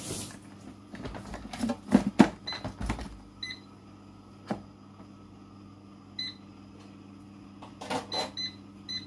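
Air fryer basket pushed into the machine with a few clunks and knocks, then the air fryer's touch-panel buttons beeping: a single short beep about three and a half seconds in, another a few seconds later, and a quick run of beeps near the end as the temperature is set.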